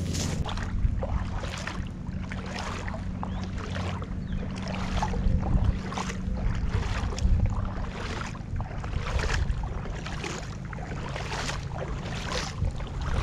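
Footsteps splashing through shallow water and mud at a pond's edge, about two steps a second, over a steady low rumble of wind on the microphone.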